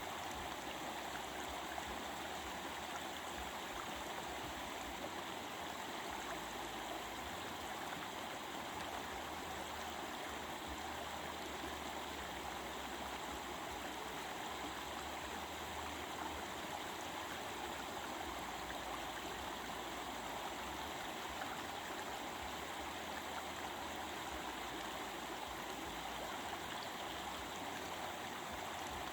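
Stream flowing: a steady, even babbling of running water.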